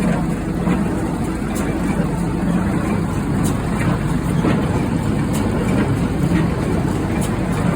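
U650M tractor's diesel engine running steadily, with faint regular knocks about once a second.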